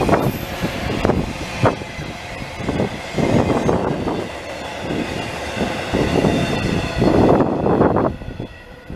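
Double-stack intermodal container train's well cars rolling past, the wheels and cars clattering in repeated surges over a steady rumble. The sound drops away near the end as the last car goes by.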